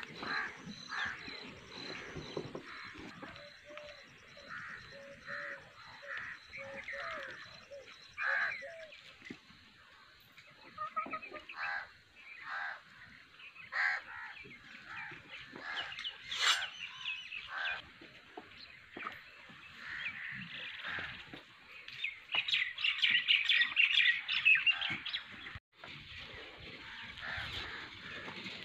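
Birds calling and chirping around a farmyard in many short, separate calls. A dense run of rapid chirps comes about three-quarters of the way through.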